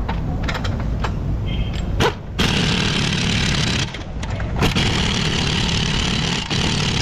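Impact wrench running on the strut-to-steering-knuckle bolts of a new front strut, tightening them. It starts about two seconds in, stops briefly around four seconds, then runs on steadily.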